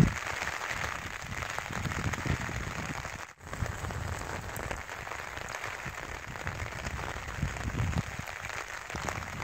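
Steady rain falling on a rooftop tent, with uneven low rumbles of wind on the microphone. The sound drops out for a moment about three and a half seconds in.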